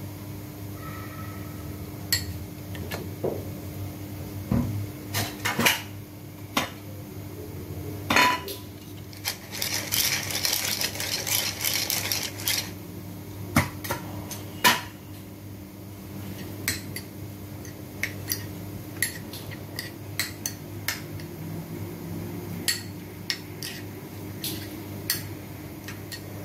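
Metal spoon clinking and scraping against a small ceramic bowl, stirring chopped parsley and garlic in oil, in many short irregular clinks. A few seconds of denser hissing noise come near the middle, over a steady low hum.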